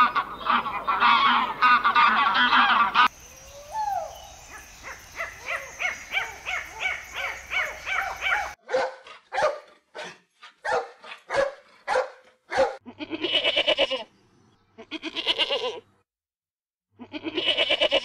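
Canada goose honking repeatedly for about half the time, then a dog barking in a quick run of short sharp barks, then a goat bleating three times in long calls.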